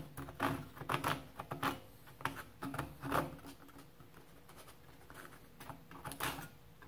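Fine-toothed Kobalt hand saw rasping in short, uneven strokes across a pin sticking out of a laser-cut wooden kit part, cutting off its excess. A saw that the builder finds has too many teeth for the job and isn't cutting well. The strokes pause briefly past the middle, then pick up again near the end.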